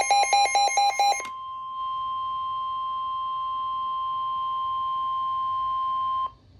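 NOAA Weather Radio warning alarm tone: a loud, steady single-pitch electronic tone signalling that a warning message follows. For the first second or so a rapid run of about five shorter, buzzier beeps sounds over it. The tone cuts off abruptly near the end.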